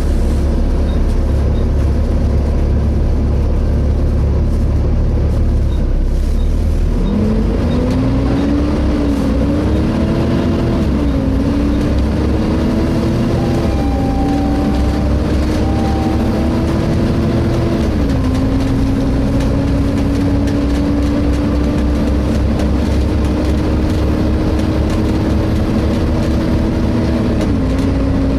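Volvo B7TL double-decker bus heard from on board: the diesel engine running low for several seconds, then a howling whine sets in that climbs in pitch as the bus pulls away and drops back several times, as at gear changes, before holding a long slow rise. The uploader could not place where the howl comes from.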